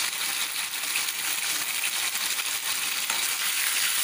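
Schezwan sauce sizzling in hot oil in a wok: a steady hiss dotted with small crackles.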